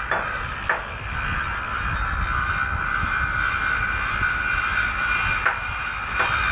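Machinery running with a steady drone and rumble, with a few sharp knocks near the start and near the end.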